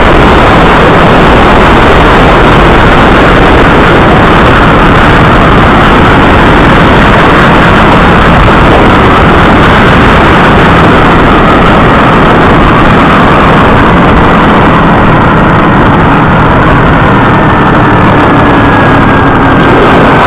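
Kawasaki Ninja 250R's parallel-twin engine running at a steady cruise under a loud, even rush of wind noise on the camera's microphone.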